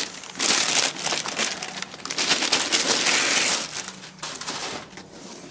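Plastic bag and foam packing wrap crinkling and rustling as a turntable is pulled out of its packaging. It is loudest for the first three seconds or so, then quieter.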